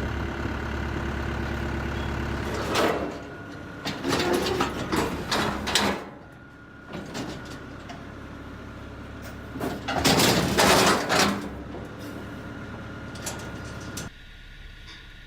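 A truck idling, then loud metal clattering and sliding bangs from stock trailer and pen gates as bison are unloaded. The clatter comes in several bouts, the longest lasting about a second and a half near the middle.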